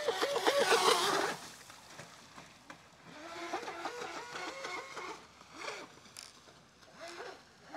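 RC jet boat's brushless motor and jet pump (Surpass Hobby 4074 2250KV motor on a 3D-printed MJET35 pump) whining at speed, with a rush of water spray. It is loudest in the first second or so, then runs fainter with its pitch rising and falling as the throttle changes.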